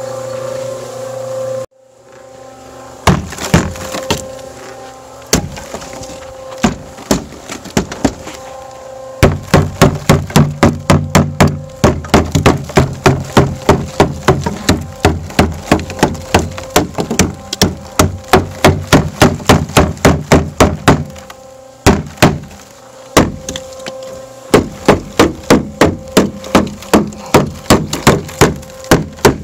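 A mortar mixer runs for under two seconds and then cuts off. After that a wooden club is banged again and again against a mortar-caked wheelbarrow to knock the mortar loose. The knocks come singly at first, then in long fast runs of about four a second, with a short pause between runs.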